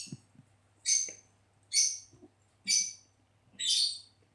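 Five short hissing sprays from a spray nozzle, about a second apart, dispensing foam into slime mixture.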